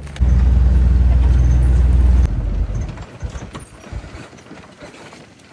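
A vehicle engine running with a loud low rumble for about two seconds, cutting off abruptly, followed by a few scattered knocks and clatter that fade away.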